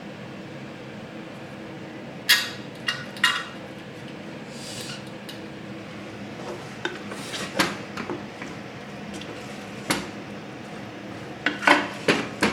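A cooking utensil knocking and scraping against a pan as spaghetti is stirred and mixed with sauces. The knocks are scattered, with a quick cluster near the end, over a faint steady hum.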